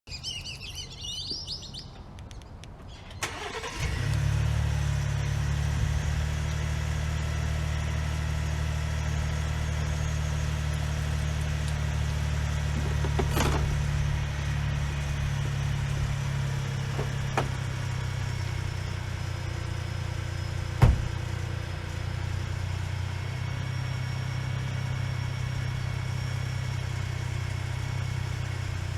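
Ford Expedition's 3.5-litre twin-turbo V6 starting about three seconds in and settling into a steady idle. A few sharp clicks come over the idle, the loudest about two-thirds of the way through.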